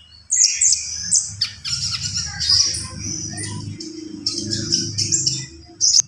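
A konin songbird singing vigorously: a fast, varied stream of high chirps, trills and short whistles packed with mimicked phrases of other birds. A steady low hum runs underneath from about a second and a half in.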